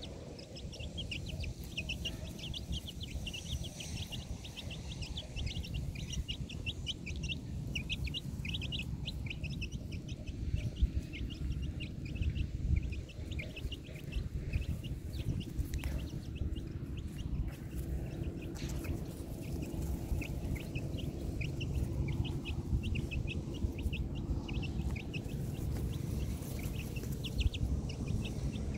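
Birds chirping in quick, continuous short high calls, over a steady low rumble.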